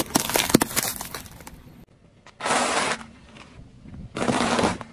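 Car tyre slowly crushing small plastic and candy objects on asphalt. A quick run of sharp cracks and snaps comes in the first second and a half, then two loud bursts of crunching about half a second each.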